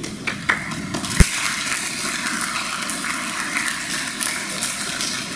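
Audience applauding in a large hall, a dense run of many hands clapping, with a sharp thump about a second in.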